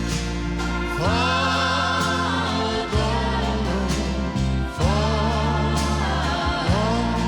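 Gospel music with voices holding long notes over a steady bass line, without clear words.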